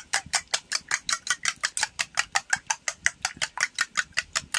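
A metal spoon beating raw eggs in a small stainless steel bowl, clinking against the bowl's side in a fast, even rhythm of about eight or nine strokes a second.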